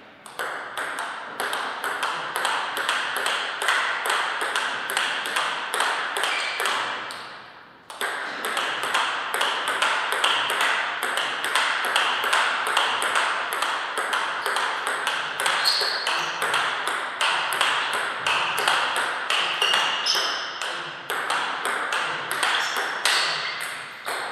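Table tennis ball being struck back and forth by bats and bouncing on the table in a steady rally, a quick, even run of sharp clicks. The clicking stops briefly about eight seconds in, then starts again.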